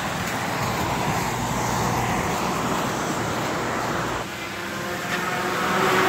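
Road traffic passing on a wet road: steady tyre hiss on the wet pavement with engine rumble. It dips about four seconds in, then another vehicle approaches near the end, its engine drone growing louder.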